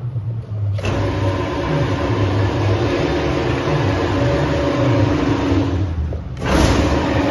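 Mado MEW 621 mixer-grinder's electric motor and worm drive starting up about a second in and running with a steady whine over a low hum, the grinder head turning empty with no plates or knives fitted. It stops briefly near the end and starts again.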